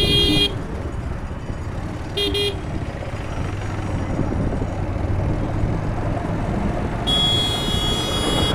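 Steady road, engine and wind rumble from riding a two-wheeler through city traffic, with a vehicle horn: one honk cutting off about half a second in, a short beep about two seconds in, and a long held honk from about seven seconds in.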